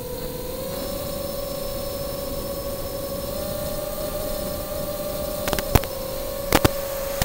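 Tricopter's brushless motors whining with a steady tone that rises slightly about a second in and holds. Several sharp clicks come near the end.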